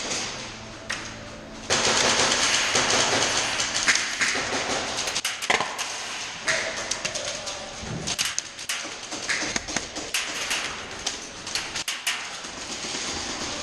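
Airsoft guns firing rapid bursts of sharp clicks, over a loud rushing noise that starts abruptly about two seconds in.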